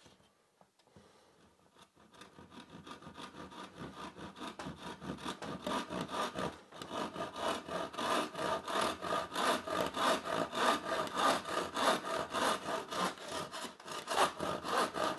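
Handsaw cutting by hand into a wooden board. About two seconds in, light starting strokes begin, then grow louder into a steady back-and-forth rasp of about three strokes a second.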